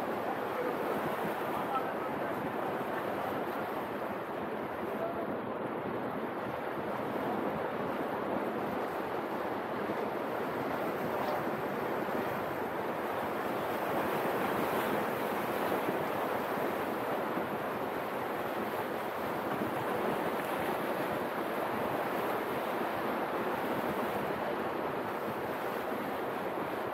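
Sea waves washing against the concrete breakwater blocks, a steady rushing noise.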